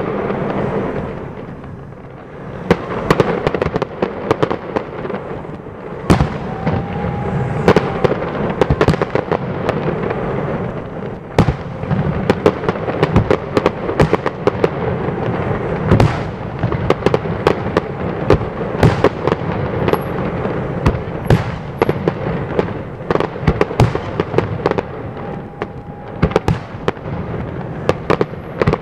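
Aerial fireworks display: shells bursting in a continuous run of sharp bangs, several in quick succession at times, over a steady rumble.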